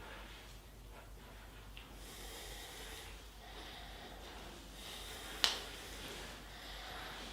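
Hands rubbing over the head and skin during a barber's massage: a soft, steady hissing rub, with one sharp crack about five and a half seconds in.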